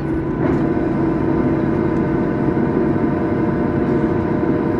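Steady cabin noise of a Boeing 737-900ER taxiing, its CFM56 jet engines at idle: a constant low hum with several steady tones held throughout.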